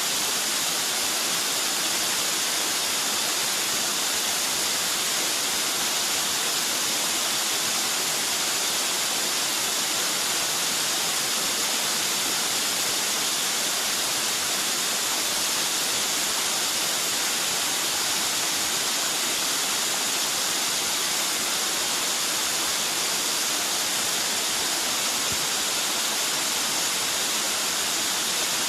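Water of a mountain valley stream rushing steadily, an even, unbroken sound with no change in level.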